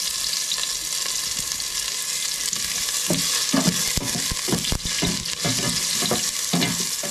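Garlic sautéing in hot oil in a pan, sizzling steadily. From about three seconds in, a spatula stirs and scrapes against the pan in short strokes.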